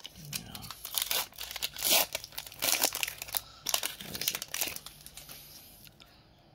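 Foil wrapper of a Pokémon booster pack torn open and crinkled by hand, in irregular crackling bursts that thin out about five seconds in as the cards are drawn out.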